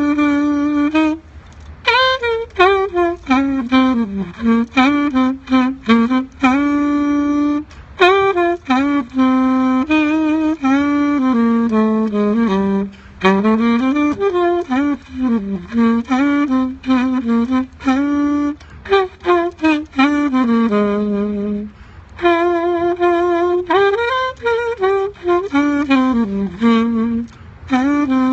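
Solo saxophone playing a slow hymn melody with vibrato, in phrases separated by short breaths.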